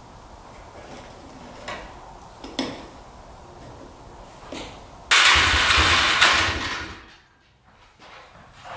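A few light knocks of hands and tools on the ATV, then about five seconds in the Can-Am Outlander 400's single-cylinder engine fires and runs loudly for about two seconds before dying away. It won't hold an idle, which the owner thinks needs the idle turned up.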